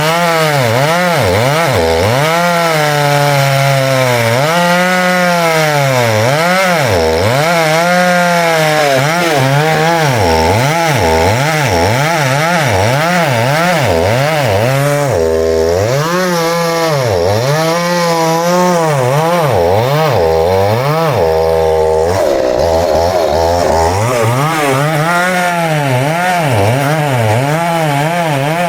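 Two-stroke chainsaw cutting wood at high revs, its engine pitch dipping and recovering again and again as the chain loads up in the cut.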